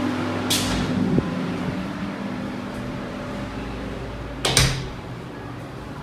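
A door being handled: a sharp latch click about a second in, and a louder knock of the door swinging shut at about four and a half seconds. Both come over a steady low mechanical hum that fades away early on.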